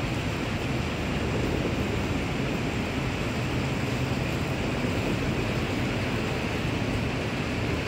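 Steady hiss of heavy rain over a high-rise city, with a low rumble underneath that does not change.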